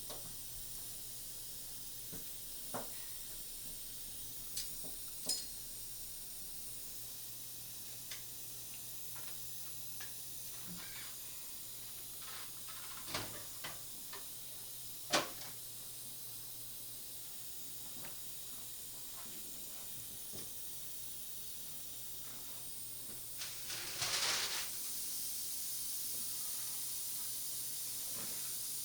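Light clicks and taps of dental instruments scattered over a steady faint suction hiss. A short, louder hiss comes about two-thirds of the way through, like a burst from suction or an air-water syringe.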